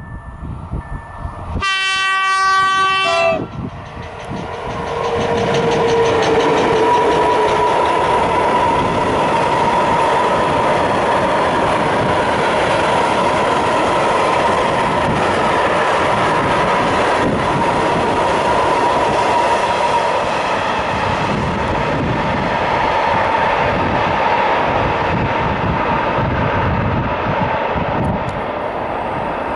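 ET22 electric freight locomotive sounding its horn in one short blast, then the locomotive and its container wagons rolling past with continuous wheel-on-rail noise and a steady high whine, fading slightly near the end.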